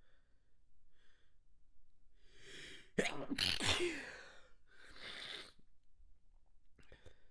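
A person's stifled, manually induced sneeze. A breathy inhale builds, then a sudden held-back burst comes about three seconds in, followed by a breathy exhale.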